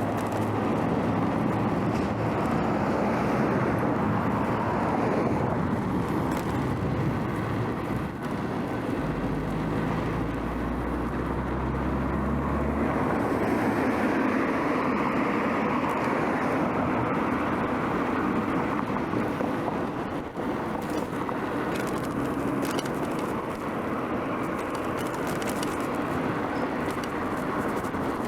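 Steady road noise from traffic, heard while riding a bicycle through city streets. A vehicle's low engine hum stands out for a few seconds about ten seconds in.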